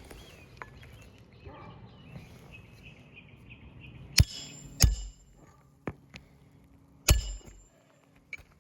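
Hammer driving roofing nails into an asphalt shingle: about six sharp blows, the three loudest with a brief metallic ring. Birds chirp faintly in the first half.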